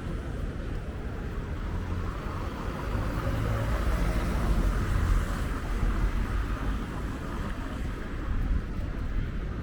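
Street ambience with a motor vehicle passing close by. Its engine and tyre rumble swells to a peak about five seconds in, then fades.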